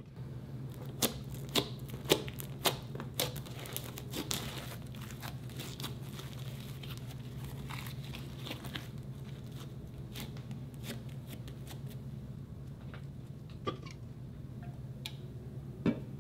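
Hands squeezing and stretching a lump of brown glitter slime made with instant snow: sticky pops and crackles, with several sharp pops in the first few seconds and finer crackling after. A steady low hum lies underneath, and there is one knock near the end.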